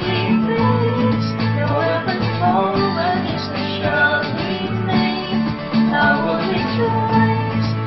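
Contemporary worship song played on acoustic guitars and keyboard, with singers.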